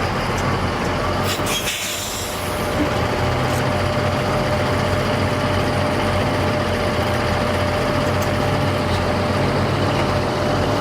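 Steady motor vehicle noise with a low engine hum and a constant thin whine, and a short hiss about a second and a half in.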